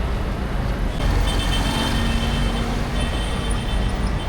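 City street traffic: a steady rumble of vehicle engines and road noise.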